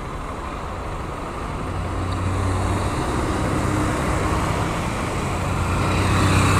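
Small motorcycle engines: one idling close by while several small motorcycles ride past, the engine sound getting louder about two seconds in.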